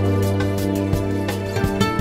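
Instrumental background music: held low notes under a run of short, separate notes.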